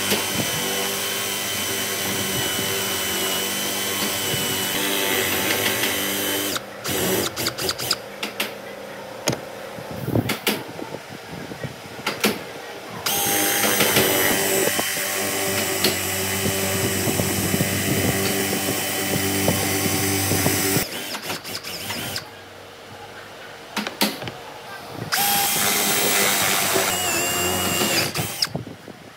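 Cordless drill with a Forstner bit boring into a pine gear blank: the motor runs with a steady whine in three long runs and stops twice in between, with short taps and knocks in the pauses.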